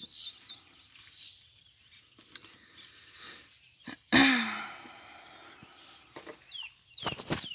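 Small birds chirping outdoors in short high falling calls, with a sudden loud burst of noise about four seconds in and a few sharp rustles near the end.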